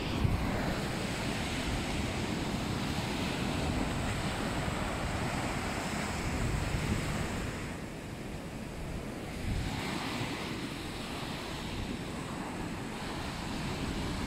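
Ocean surf washing up onto a sandy beach: a continuous hiss of breaking waves that swells and eases, quieter for a couple of seconds past the middle. Wind rumbles on the microphone underneath.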